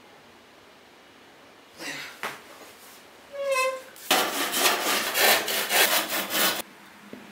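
Handsaw cutting wood with quick back-and-forth strokes, about four a second, for some two and a half seconds, then stopping abruptly. About half a second before the sawing starts, there is a brief wavering ringing tone.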